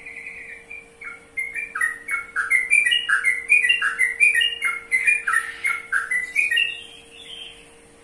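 Sooty-headed bulbul (trucukan) singing: one short whistled note, then from about a second in a loud, fast run of short whistled notes jumping up and down in pitch, which ends near the end.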